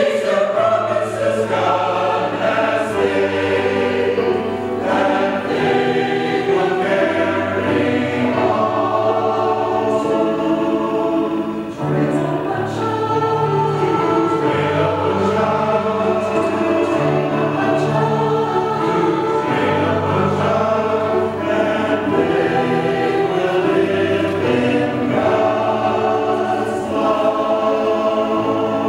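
Mixed church choir singing in parts with piano accompaniment, sustained low notes under the voices.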